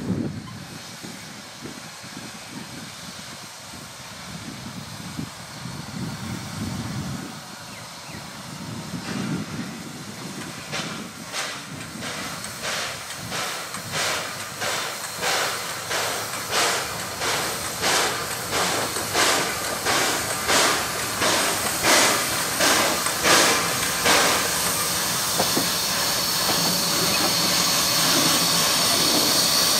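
4-8-0 steam locomotive T251 working light engine: a low rumble at first, then exhaust chuffs begin about a third of the way in and grow louder at about one and a half beats a second. Near the end the chuffs give way to a steady loud hiss of steam as the engine comes close.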